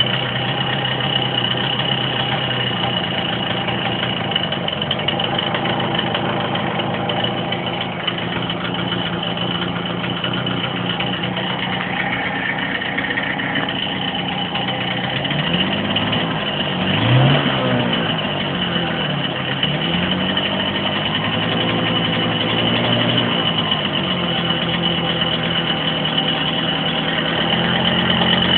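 Hercules Prima 5 moped's small two-stroke engine idling with a heavy rattle. It is revved up and back down about halfway through, and briefly again a few seconds later. The rattle came from a worn needle bearing and piston: replacing them cured it.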